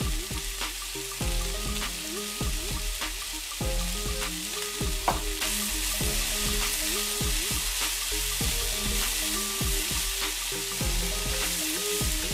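Diced vegetables and bacon sizzling in an oiled frying pan, with repeated clicks and taps as they are stirred. Background music plays along with it.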